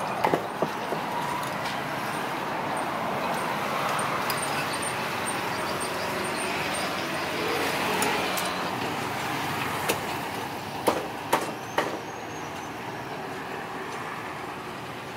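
Steady road traffic noise, with a few sharp knocks just after the start and a cluster of three near the end.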